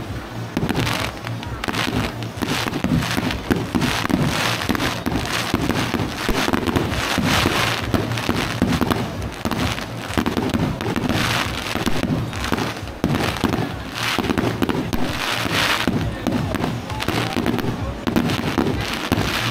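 Aerial fireworks shells bursting overhead in a continuous barrage, bang after bang with no pause.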